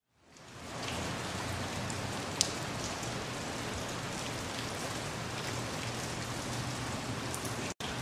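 Steady rain falling on wet picnic tables, paving and grass, fading in at the start, with one sharp drip tap about two and a half seconds in and a momentary break near the end.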